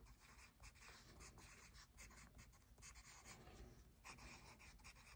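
Pen writing on paper: faint, irregular scratchy strokes as a line of handwriting is written.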